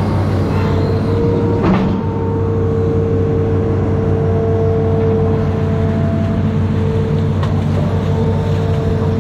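Amphibious excavator's diesel engine running steadily under load, heard from the operator's cab, with a steady whine over the engine note as the boom swings and the arm dips into the river. A short clatter about a couple of seconds in.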